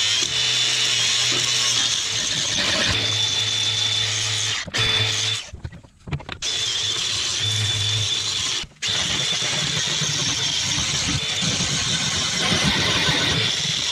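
DeWalt brushless angle grinder grinding paint and rust off a bush hog's steel deck: a steady high whine over harsh grinding noise. It cuts out briefly about five seconds in and again near nine seconds.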